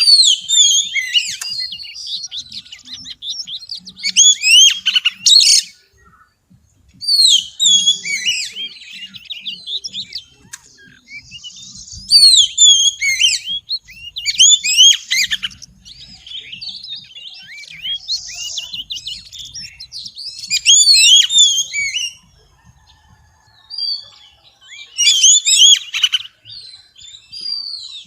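Female oriental magpie-robin singing: quick, varied whistled phrases and chirps in bursts of a few seconds, with short pauses between them.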